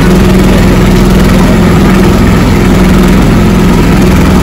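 Motorboat engine running steadily, a loud constant drone with a low hum.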